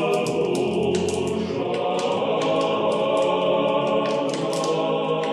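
Choir singing in sustained, held chords: closing music of an Orthodox programme, likely an a cappella church chant.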